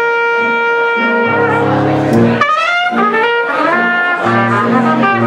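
Dixieland jazz band playing: a trumpet holds a long note, then plays a phrase with a quick upward run about halfway through, over repeated tuba bass notes.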